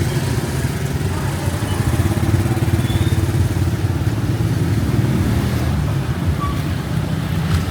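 Motorbike traffic running close by, a steady low engine rumble.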